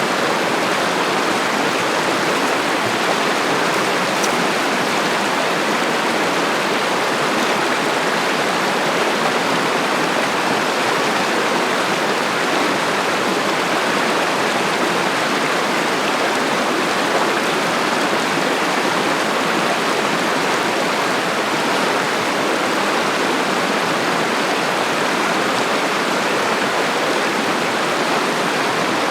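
Cossatot River's clear mountain stream rushing steadily, loud and unbroken.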